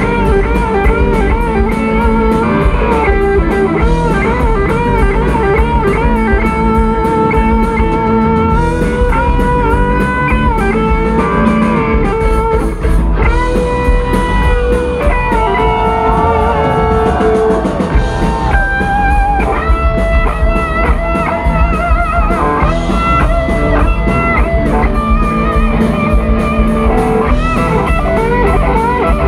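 Live rock band playing loud: a soaring electric guitar lead with wide vibrato and string bends over driving drums and bass.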